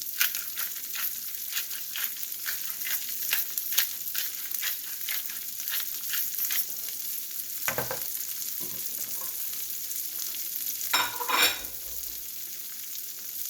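Asparagus and garlic sizzling in butter in a frying pan, a steady hiss full of small crackling spatters. Two louder scrapes stand out, about 8 and 11 seconds in.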